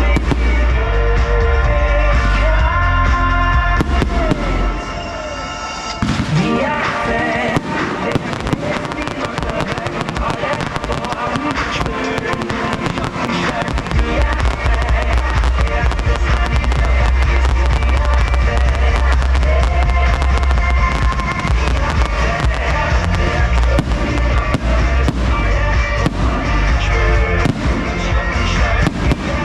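Fireworks display going off over a loud pop song soundtrack. After a brief quieter moment in the music, a dense run of rapid bangs and crackling sets in about six seconds in and continues with the music.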